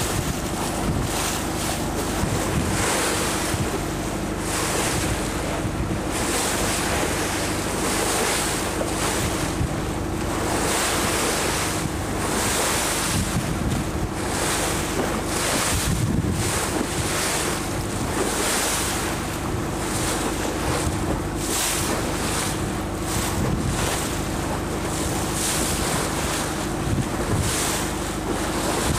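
A riverboat's engine running at a steady hum, under wind buffeting the microphone and water rushing past the moving hull, the rush swelling and fading every second or two.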